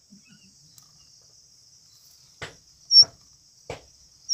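Bird chicks giving short, high-pitched chirps, two of them in the second half about a second and a half apart, with soft rustling between, over a steady faint high hiss.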